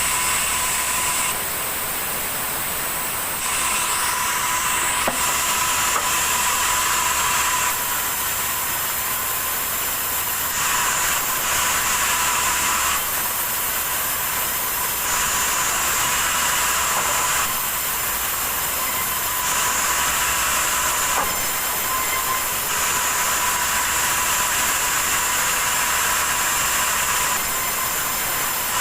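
Sawmill saw running steadily through wood, a loud, hissing mechanical noise with a thin steady whine, its pitch and strength shifting slightly every couple of seconds.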